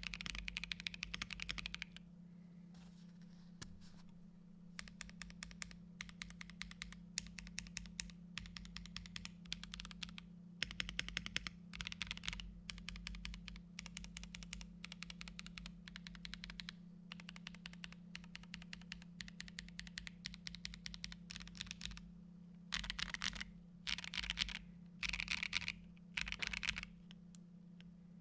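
Custom Bakeneko65 mechanical keyboard with an FR4 plate, Neapolitan tactile switches and NicePBT keycaps being typed on, with fast continuous clacking for about two seconds. After that, keys are pressed in short, separated runs. Near the end come four louder, denser flurries of key presses.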